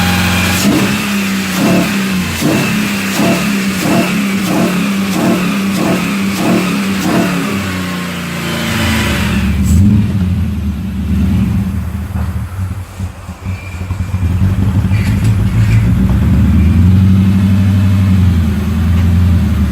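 Mercedes M113 5.5 AMG V8, swapped into a W123 and breathing through Borla and Fortluft mufflers, running unevenly. For the first eight or nine seconds it surges in a regular pulse about every 0.7 s, then settles into a steadier, lumpier idle with a brief dip. The owner calls it a misfiring ("троит") sound, popping.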